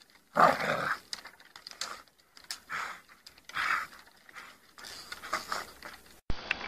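A dog making a series of short, rough vocal sounds, roughly one a second, the first the loudest.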